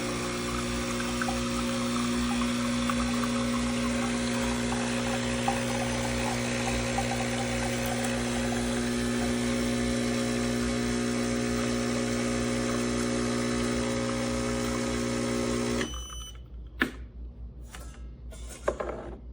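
Breville Barista Touch espresso machine running with a steady pump hum over a hissing haze, which cuts off abruptly near the end; two sharp clicks follow.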